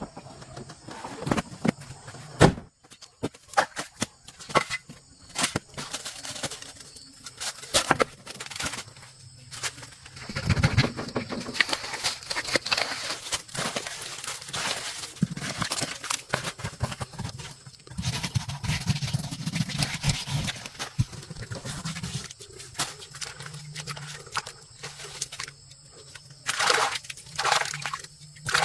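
Irregular knocks and clicks with stretches of scraping and rustling, as of hands working with tools and parts on a car wheel.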